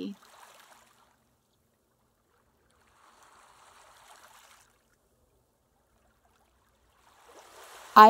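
Faint rushing of river water, heard in a short stretch of about a second and a half in the middle, with brief traces at the start and end and near silence between.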